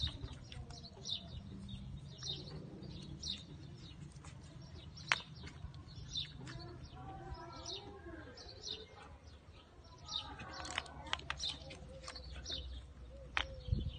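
A small bird chirping over and over, faint short high chirps about once a second, with a single sharp click about five seconds in.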